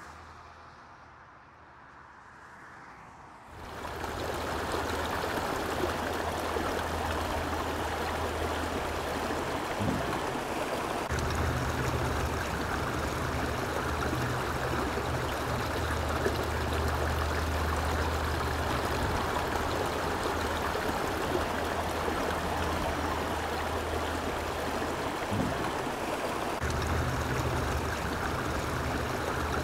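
Creek water running steadily over riffles, an even rush that comes in about four seconds in after a fainter start.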